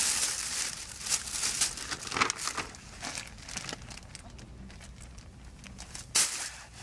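A cat pawing at and biting a fish-shaped cat toy, making crinkly rustling in irregular bursts for the first few seconds, then quieter, with one more short burst near the end.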